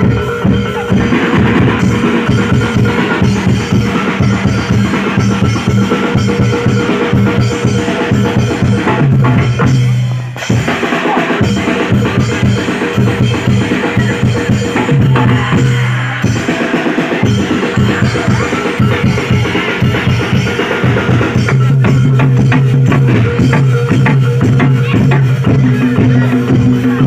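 Reog and jaran dor ensemble music played live: fast, dense drumming with a heavy bass drum (jedor) under steady held tones. The music thins out briefly about ten seconds in, then carries on.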